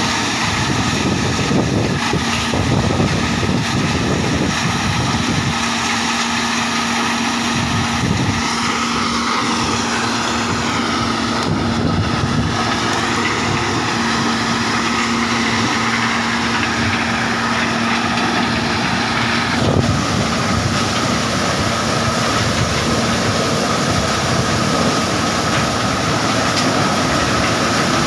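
Maize thresher running under load as cobs are fed up its elevator into the threshing drum: a dense, steady mechanical clatter of cobs being shelled. A steady low hum runs underneath and drops away about two-thirds of the way through.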